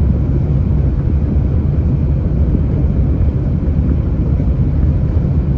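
Steady low rumble of a car being driven, its engine and tyre noise heard from inside the cabin.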